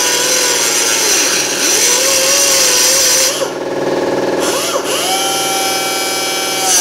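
A handheld cut-off wheel grinding through a steel exhaust pipe, its whine sagging and wavering in pitch as the wheel bites into the metal. About three and a half seconds in, the cutting sound drops away briefly. The tool then runs free at a higher, steady whine.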